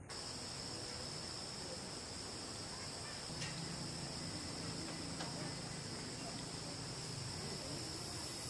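Steady, high-pitched chirring of night insects, with a faint low hum beneath it.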